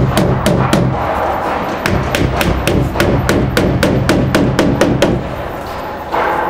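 Hammer driving nails into a wooden door frame: a rapid series of sharp blows, several a second, thinning out with a short pause near the end.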